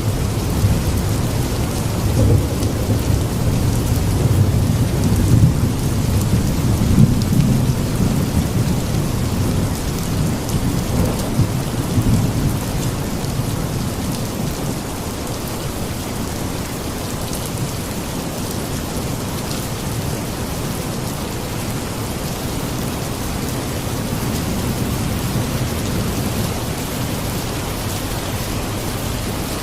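Steady heavy rain with a low rolling thunder rumble that swells in the first several seconds and eases off after about twelve seconds.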